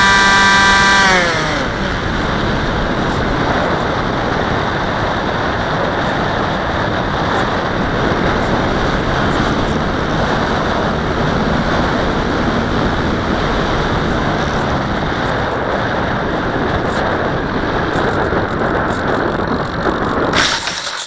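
Brushless electric motor of a Dynam Hawk Sky RC plane whining, then throttled off about a second in, its pitch falling away. A steady rush of wind noise over the onboard camera follows as the plane glides down. Near the end comes a short burst of noise as it lands in dry grass.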